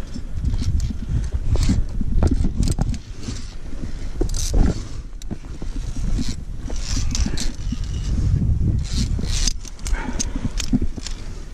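Wind buffeting the microphone in an uneven low rumble, with scattered clicks and scrapes from climbing gear and from hands and boots on rock.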